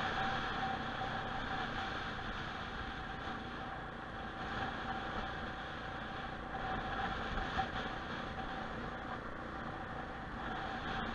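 Motorcycle engine running steadily while riding along a road, mixed with a steady hiss of wind and tyre noise.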